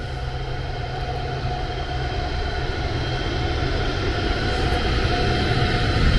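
DB class 101 electric locomotive approaching and passing close by, its running noise growing steadily louder: a low rumble with a steady whine above it.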